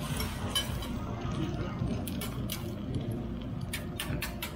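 Metal spatula scraping and clicking on a steel teppanyaki griddle as egg is spread into an omelet: irregular sharp clinks, more frequent in the second half.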